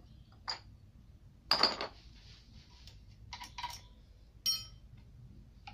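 Metal tools and small engine parts clinking as a motorcycle cylinder head is taken apart: a few separate clinks, the loudest about a second and a half in, and a later one that rings briefly.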